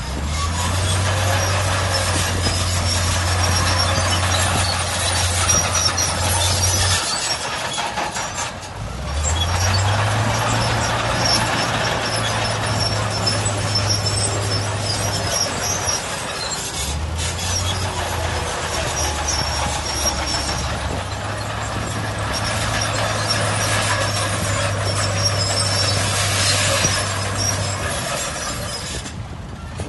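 Diesel engine of heavy earthmoving machinery running under load. Its low note drops away and picks up again about every eight to ten seconds, with steady mechanical clatter and noise over it.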